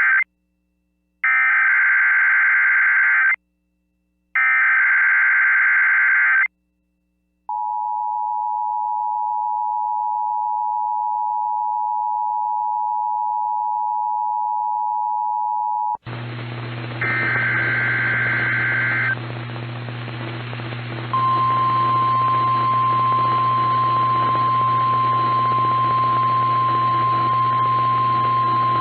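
Emergency Alert System tones: three bursts of digital SAME header data, then the EAS two-tone attention signal held steady for about eight seconds. Then relayed NOAA Weather Radio audio comes in over radio hiss and a low hum: one more data burst, then the weather radio's single steady warning alarm tone for about nine seconds.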